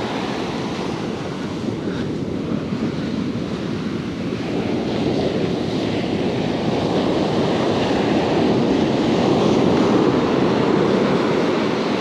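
Ocean surf breaking and washing up a sandy beach, a steady rush that swells louder from about halfway through as a wave runs in.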